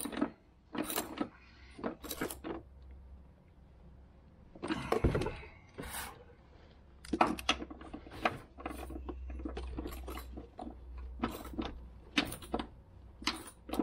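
Irregular clicks, knocks and rustles of hands working a rubber dust boot and zip tie on a shock absorber, over a low steady hum.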